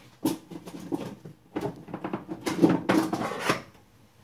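Rummaging in a kitchen drawer: a run of knocks, clicks and utensil rattles, loudest about two and a half to three and a half seconds in.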